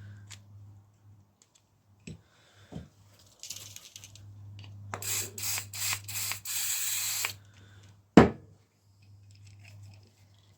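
Aerosol penetrating oil sprayed onto a sticking mechanism: a loud hiss in several short bursts and then one longer burst, followed about eight seconds in by a single sharp knock.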